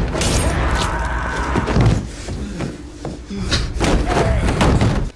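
Film soundtrack from a violent scene: a loud slam at the start, then a busy run of impacts and struggle noises.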